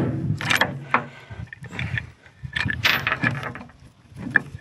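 Irregular metallic clinks, clicks and scrapes of a steel PTO universal-joint yoke and cross being handled and worked loose by hand, with the cross coming free once a bearing cap has been knocked out.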